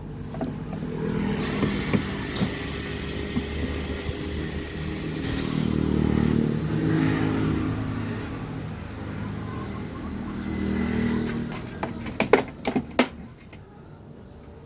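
A motor running, its pitch rising and falling, with a few sharp clicks or knocks near the end.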